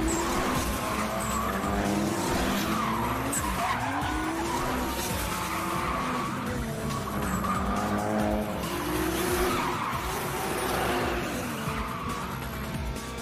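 Sports car engines revving up and down in repeated sweeps while the tyres skid and squeal as the cars drift, with music underneath.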